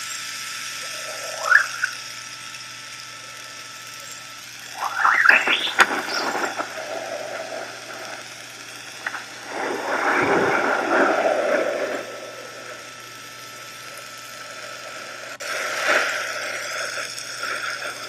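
Sonified induction magnetometer data, geomagnetic field readings sped up into audible sound: a steady hiss with several short rising chirps and swells of scratchy noise. It is an unusual resonance that sounds a bit like Pc1 pulsations, but not really.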